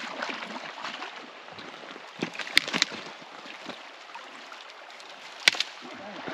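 River water running and sloshing, with a few sharp knocks, a cluster about two to three seconds in and one more near five and a half seconds.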